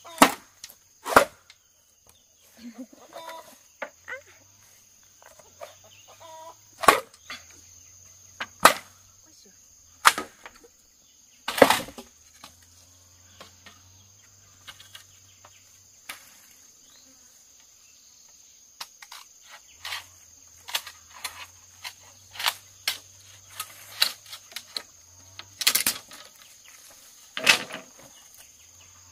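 Machete striking bamboo poles: irregular sharp chops, the hardest in the first dozen seconds, followed by lighter knocks and clatter as the poles are handled. A steady high insect drone runs underneath.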